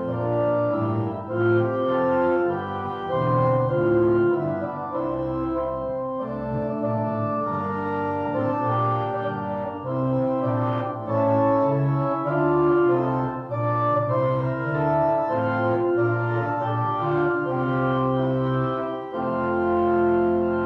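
Organ playing a hymn tune in held, full chords, changing every second or so.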